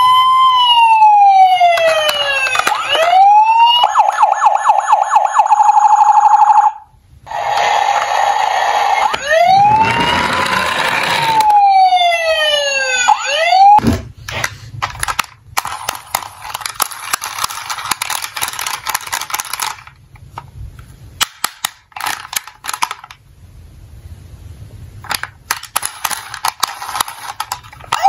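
Electronic siren from a Tonka police emergency-services toy truck: a rising and falling wail, then a fast warble, a short break, and another wail that cuts off suddenly about fourteen seconds in. After that, plastic toy cars clatter and knock as a hand rummages through them in a cardboard box.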